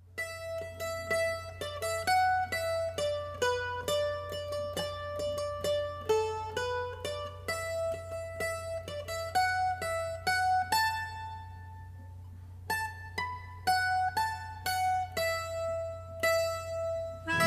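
Instrumental music: a melody of quick plucked-string notes over a steady low drone, starting from silence.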